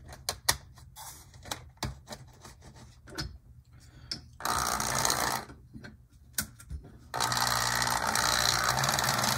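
An HO-scale Mehano BL2 diesel model's pancake motor and gears running, a steady whirr with a low hum: briefly about four seconds in, then steadily from about seven seconds in as the locomotive moves along the track, sounding okay. Before that, scattered clicks as it is set onto the plastic track.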